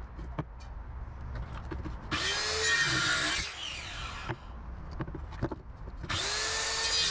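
Corded circular saw spinning up and cutting through old wooden boards twice: a cut about two seconds in lasting a second and a half, then another starting about six seconds in, the motor's whine rising as it starts and falling as it stops. Sharp knocks of boards being handled come in the gap between cuts.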